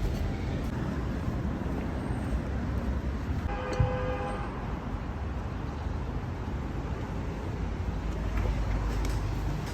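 Steady traffic rumble, with one short horn-like tone about three and a half seconds in.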